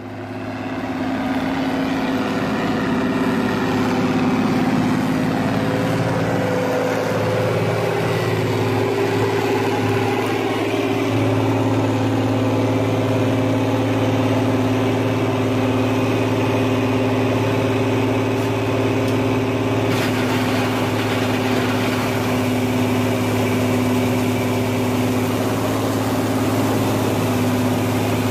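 Diesel engines of an Arbos 125 combine harvester and a tractor running close by, a loud steady drone whose pitch shifts slightly about ten seconds in and then holds. The combine is unloading durum wheat through its auger into a trailer.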